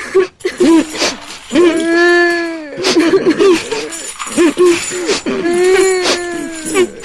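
Ghostly wailing and moaning voices, with two long held wails, over rattling, clinking chains being dragged.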